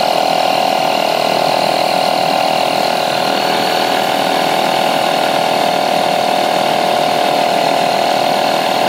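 Suaoki DC 12 V portable tire inflator's electric air compressor running steadily while pumping up a car tire, a loud continuous drone holding one steady pitch over a rattling hiss.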